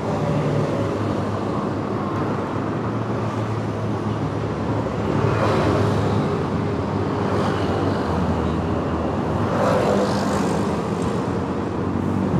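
Roadside traffic: motor vehicle engines and tyres running by steadily, swelling about five and a half and ten seconds in as vehicles pass close.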